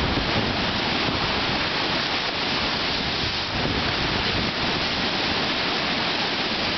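Strong wind buffeting the microphone over lake waves breaking and splashing against a wooden dock and boat lift, a steady dense rush of wind and water.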